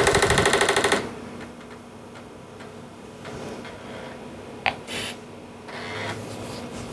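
Apple IIc's built-in 5.25-inch floppy drive booting a disk: a rapid, even mechanical rattle for about the first second as the drive head recalibrates, then fainter drive noise with an occasional click as it reads.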